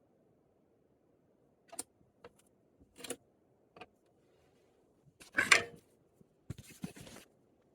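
Small handling sounds at a workbench: a few short, separate clicks, a louder brief scrape about five and a half seconds in, then a quick cluster of clicks and rustling near the end.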